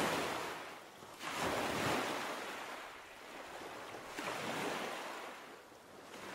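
Sea surf: waves washing in and drawing back, swelling and fading about three times.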